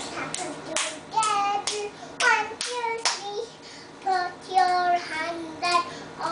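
A toddler singing in a small high voice, with sharp hand claps between her phrases.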